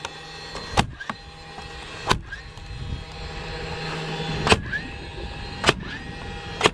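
Cordless narrow-crown stapler firing staples into wood shingles, about six sharp shots at uneven intervals, its motor whirring up in pitch after several of them.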